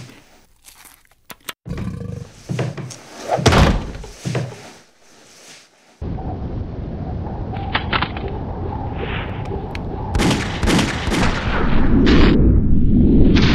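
Cartoon sound effects: a run of knocks and thuds with one loud hit, then about six seconds in a sudden cut to a loud, continuous low rumbling noise with sharp hits, growing louder near the end.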